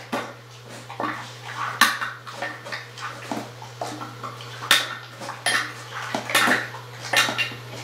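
Dog nosing and licking in a metal bowl, with irregular clinks and scrapes of metal against metal every half second or so.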